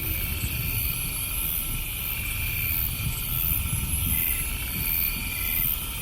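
Low, steady rumble of a distant train running, in the gap between horn blasts. The horn's chord cuts off right at the start and is not heard in these seconds.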